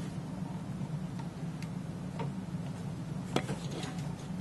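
Scattered light clicks and knocks of a Qualstar RLS-8500 tape library's metal carriage assembly being handled and slid out of its chassis, the sharpest about three and a half seconds in, over a steady low hum.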